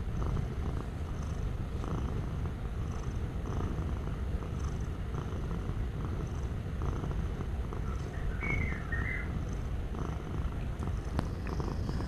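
Domestic cat purring steadily, a continuous low rumble that pulses evenly.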